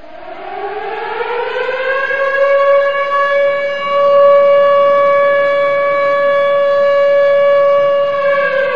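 Civil defense siren winding up, its pitch rising over the first two seconds or so, then holding one steady tone before it starts to wind down near the end.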